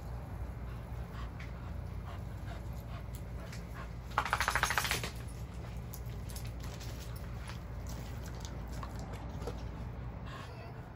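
Pit bull panting and moving about on grass, with one loud rapid rattling burst lasting about a second, around four seconds in.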